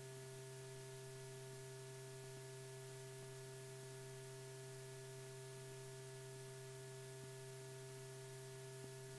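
Faint, steady electrical hum with an even hiss underneath, unchanging throughout: the background noise of an old film soundtrack, with no aircraft or other sound heard.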